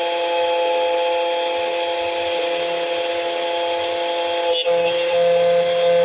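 Battery-powered KNC 91 automatic key cutting machine milling a brass key blade: the cutter spindle runs at a steady whine of several pitches over a hiss. A brief tick comes about four and a half seconds in, after which a low hum gets louder.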